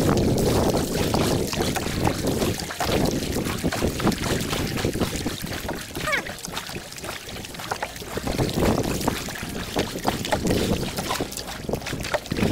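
Wind buffeting the microphone while a canoe is paddled, with splashes and knocks from the paddle and water against the hull.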